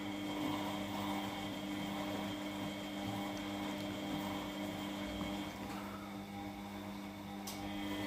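Front-loading washing machines running in their main wash: a steady motor hum with two low held tones.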